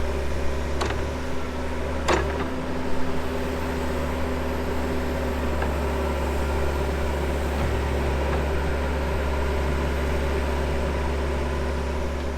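Backhoe engine running steadily at idle, a constant low hum, with two short clicks about one and two seconds in.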